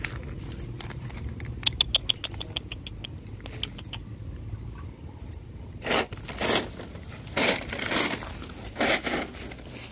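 A dog rooting through dirt and plastic litter on a chain leash. About two seconds in comes a quick run of light clicks and rattles. In the second half there are six short scraping, rustling bursts as it noses and paws the ground.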